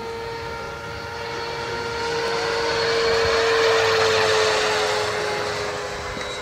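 Roban HH-60 Jayhawk 600-size electric RC helicopter flying past: a steady whine from its electric motor and rotor blades that grows louder toward the middle and then fades, its pitch dropping slightly as it goes by.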